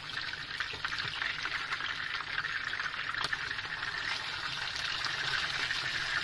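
Marinated queenfish (daing) frying in hot oil in a pan: a steady crackling sizzle that grows a little louder toward the end, with one sharp click about three seconds in.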